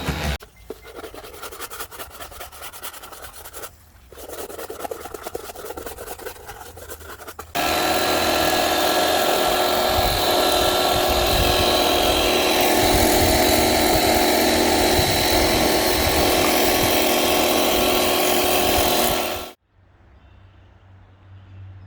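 Rapid scrubbing strokes, then about seven seconds in a pressure washer starts spraying with a loud steady hiss and a steady whine from its pump, stopping abruptly near the end.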